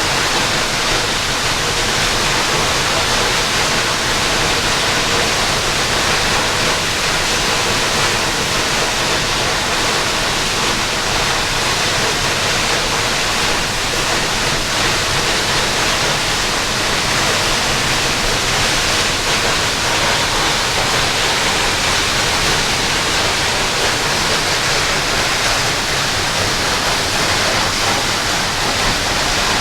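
Waterfall: the steady rush of falling water, loud and unbroken.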